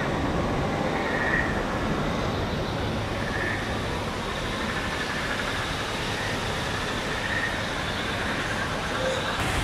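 Steady rushing of falling water from small waterfalls cascading into a pond, with faint higher notes recurring every couple of seconds.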